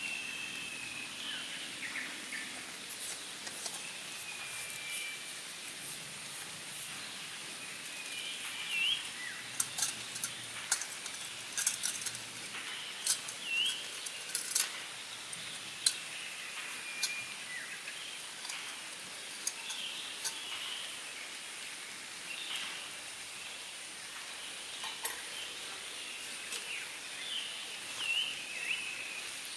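Small clicks and metal knocks from handling a camping gas-canister stove and steel kettle as the stove is fitted and the kettle set on it, busiest in the middle of the stretch. Birds chirp now and then over a steady high hiss.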